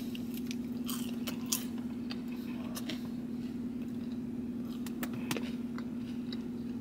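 A person chewing and biting food with soft crunches and small mouth clicks, over a steady low hum.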